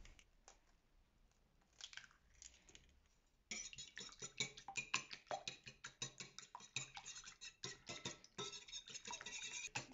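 A few light taps about two seconds in as a second egg is cracked. Then a metal wire whisk beats eggs in a ceramic bowl from about three and a half seconds on, clinking rapidly against the bowl.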